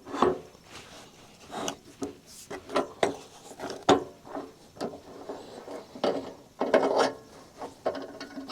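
Wooden boards being handled, with irregular knocks and scraping as the wood is set down and slid about.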